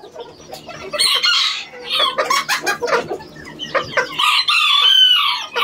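Chickens clucking and a rooster crowing, with a long crow over the last second and a half and a few short knocks in between.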